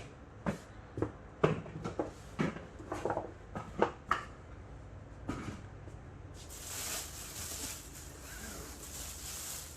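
Packaging being handled while unboxing a 3D printer: a quick run of knocks and clicks, one more knock a second later, then a few seconds of steady rustling.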